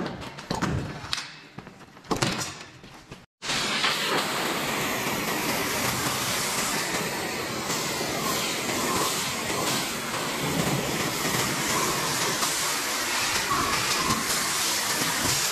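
A few knocks and taps, then, after an abrupt break a little over three seconds in, a steady loud hiss of water spraying from a hose.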